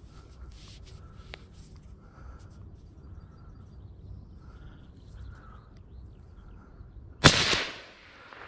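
A single rifle shot from a Bergara hunting rifle about seven seconds in: one sharp, very loud crack whose echo trails off over the next half second.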